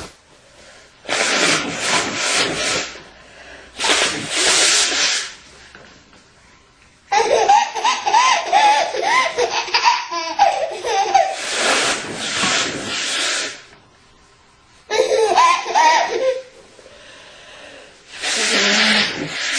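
A woman blowing her nose hard four times, each blow a loud hissing burst of a second or two. Between the blows a baby laughs in bouncing giggles.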